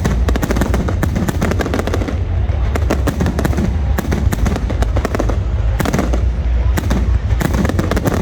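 Fireworks going off in rapid succession: dense, crackling bangs and pops, several a second, over a steady low rumble.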